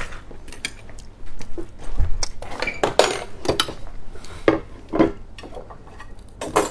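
Clinks and knocks of a serrated steel kitchen knife against tableware as it is picked up, then the knife cutting into a whole starfruit: a run of short, sharp clicks with no steady sound between them.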